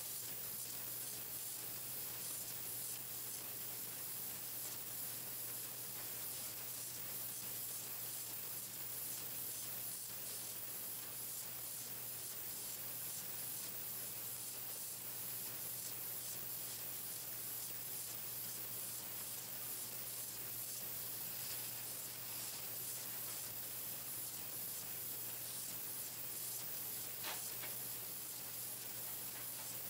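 Pencil-painting machine running: a steady hiss over a constant low hum, with a single click near the end.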